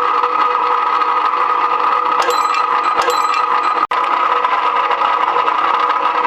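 Chinese electric rebar cutting machine running steadily with a constant hum, with two short sharp clacks a couple of seconds in.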